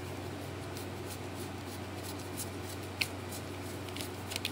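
A deck of cards being shuffled by hand: soft, scattered papery flicks and clicks, the sharpest about three seconds in and a cluster near the end, over a steady low hum.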